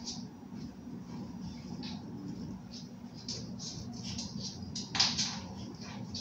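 Red spatula scraping and stirring thick dough in a glass bowl: short, irregular scrapes, with a louder one about five seconds in, over a low steady hum.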